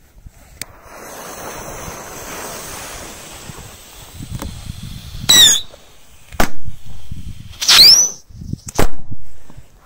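Whistling fireworks on sticks: a fuse hisses for a few seconds, then two brief shrill whistles glide in pitch, each followed about a second later by a sharp bang.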